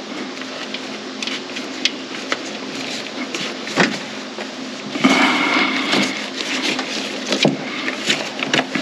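Scattered light clicks and knocks of hands working a plastic hose fitting and its clip in an engine bay, over a steady low hum.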